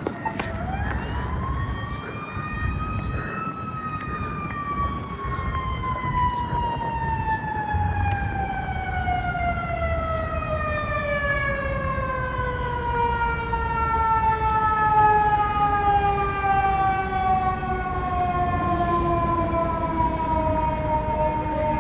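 Fire truck siren rising in pitch for about three seconds, then falling slowly and steadily through the rest of the sound, over a low engine rumble.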